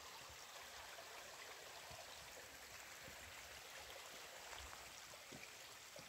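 Faint, steady sound of a shallow mountain stream trickling over rocks, running again with spring meltwater now that its ice has thawed.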